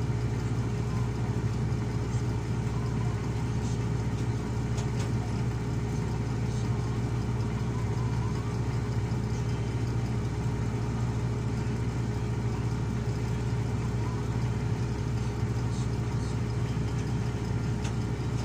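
Heavy diesel engine running steadily at an even speed, with no revving or change in load.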